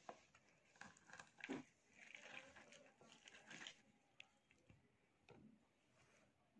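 Halved sweet lime pressed and twisted by hand on a plastic hand citrus juicer: faint, irregular wet squishing of the pulp and rubbing against the plastic reamer, in short strokes.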